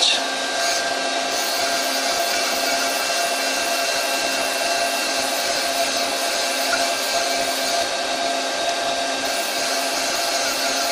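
Doosan CNC lathe running with its spindle turning at 1000 rpm: a steady whir with several steady hums, unchanging throughout.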